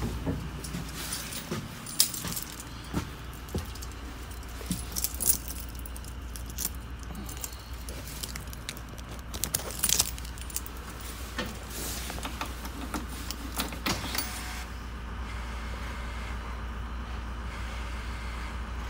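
A bunch of keys jangling and clicking as they are handled to switch on a school bus's ignition, over a steady low rumble. The jingling stops a few seconds before the end, leaving a steadier hum.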